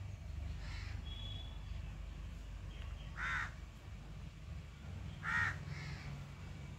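Crows cawing: a faint caw about a second in, then two loud single caws about two seconds apart, the second followed by a softer one. A low steady rumble runs underneath.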